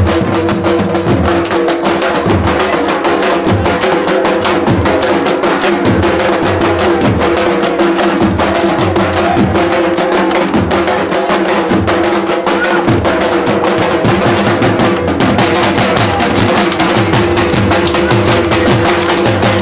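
Punjabi dhol, a large double-headed barrel drum, beaten with sticks in a fast, driving dance rhythm, over a steady held tone.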